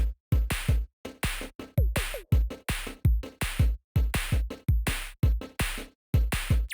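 Background music: an electronic beat of drum-machine kicks and snares at about two beats a second, with short silent gaps between hits.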